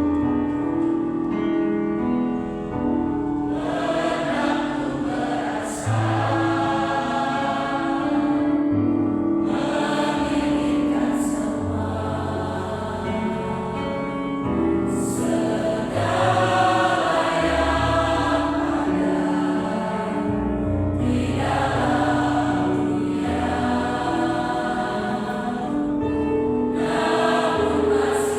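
Choir singing a gospel song over sustained accompaniment, in phrases of a few seconds each with short breaths between them. The voices come in about three and a half seconds in, over the accompaniment.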